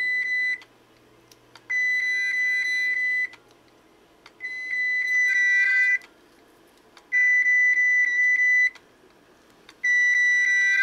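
An opened, failing Seagate 1 TB 7200 RPM hard drive, its magnets removed, giving out a flute-like whistling tone in repeated bursts of about a second and a half, roughly every 2.7 seconds. A second, lower tone joins near the end of some bursts.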